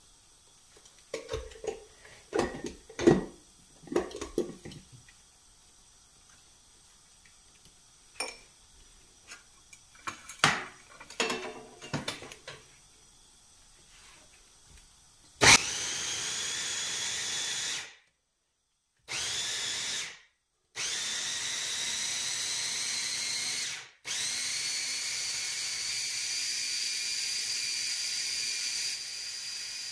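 Electric mini chopper with a glass bowl grinding chopped red chilies. First come knocks and clicks as the motor unit is set onto the bowl. About halfway in, the motor starts with a rising whine and then runs in pulses, stopping briefly three times.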